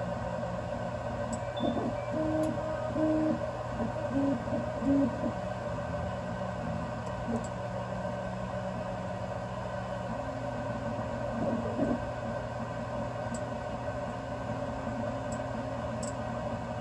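BIBO Touch X dual-extruder 3D printer printing. Its stepper motors sing in short pitched notes that step up and down as the print head moves, with a longer held tone after about ten seconds. Under them runs the steady whir of the print-head cooling fans.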